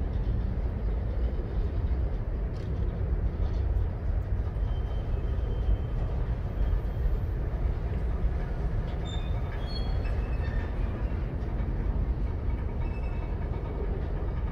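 Freight cars rolling past on the rails: a steady, even rumble of wheels on track, strongest in the low end.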